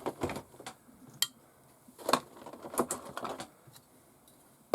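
Kit box and its small metal and plastic parts being handled: scattered light clicks and knocks with short rustling noises.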